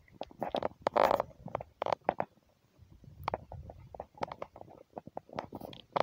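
Irregular crackling and rustling footsteps through dry grass and twigs, with a low wind rumble on the microphone; a couple of louder rustles about one and two seconds in.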